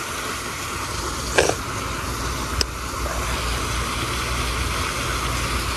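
Steady rushing of water running over a small spillway, with a low rumble beneath it and two short clicks, about a second and a half and two and a half seconds in.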